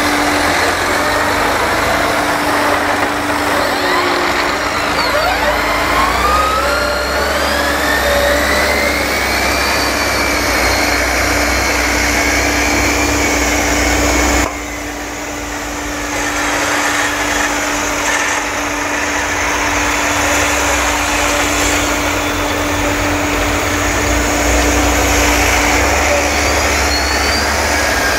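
Tractor engines running during maize silage hauling, with several rising whines as tractors pull away and speed up, over a steady hum and a low rumble. The sound drops abruptly about halfway through, then builds back up.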